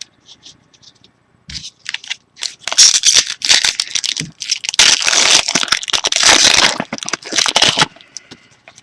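Foil wrapper of a Bowman Chrome trading-card pack being torn open and crinkled: a few light clicks, then loud crackling rustling for about five seconds.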